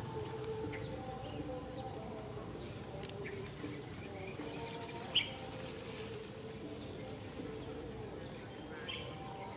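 Soft background music of held, stepping tones, with short bird-like chirps over it and one sharp, louder chirp about five seconds in.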